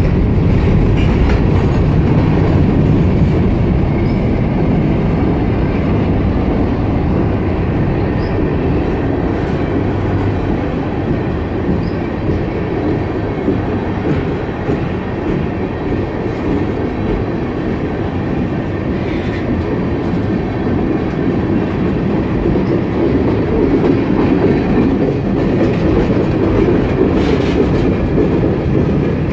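Freight cars of a BNSF mixed freight train (covered hoppers, tank cars, a boxcar) rolling past: a steady rumble of steel wheels on rail with occasional wheel clacks.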